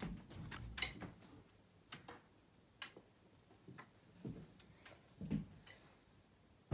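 Faint, scattered light clicks and taps of trading cards being handled and laid onto a playmat, roughly one every second, with a few soft low thumps among them.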